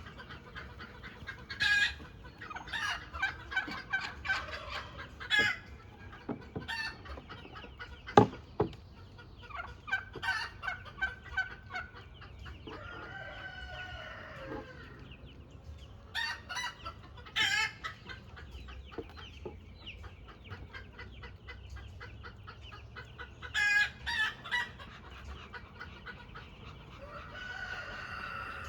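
Chickens clucking on and off, with a rooster crowing once around the middle. A single sharp knock about eight seconds in.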